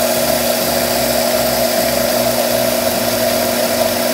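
Electric blender with a stainless-steel jar running steadily at full speed, grinding toasted rice and coarse sea salt into a dry powder.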